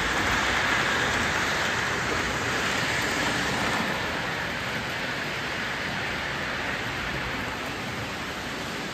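Electric model circus train, started by a layout push button, running along its track. The wheels and motor make a steady rushing rumble that slowly fades as the train moves off.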